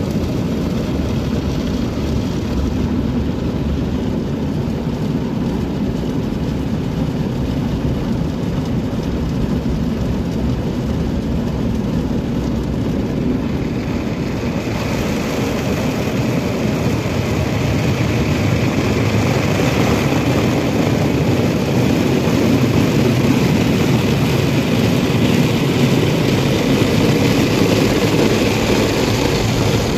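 Automatic car wash heard from inside the car: rotating brushes and water spray scrub and pour over the windscreen and body in a steady rush. About halfway through the sound turns brighter and hissier and grows a little louder.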